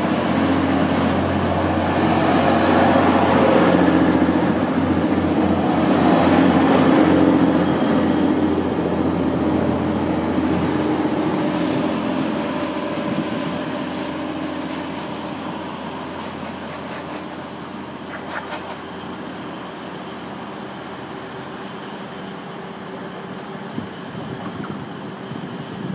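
Class 185 Desiro diesel multiple unit pulling away, its diesel engines working under power. The engine note is loudest in the first few seconds, then fades steadily as the train draws off into the distance.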